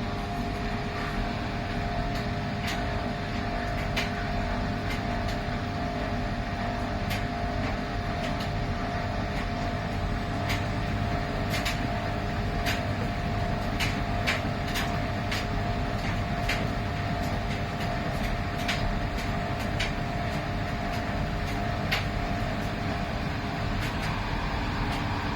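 Miele PW 6080 commercial washing machine running: a steady hum with a constant whine, and scattered sharp clicks.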